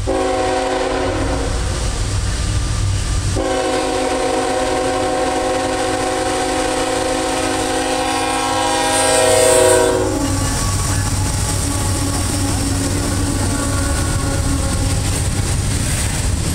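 CSX ET44AH freight locomotive sounding its horn: a short blast, then a long one of about six seconds. Near the end of the long blast the locomotives pass close by. Then the hopper cars of a loaded rock train rumble past, wheels clicking over the rail joints.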